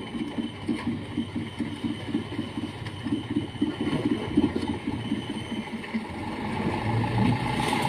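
Mitsubishi Fuso light truck's diesel engine running at low revs with an even pulsing beat, growing louder near the end as the truck draws closer.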